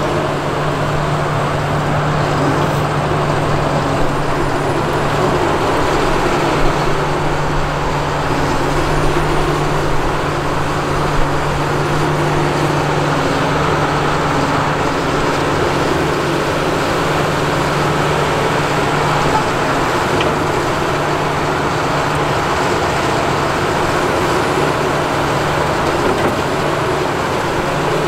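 Kobelco SK380SR excavator's diesel engine running steadily, a constant low drone with no change in pitch.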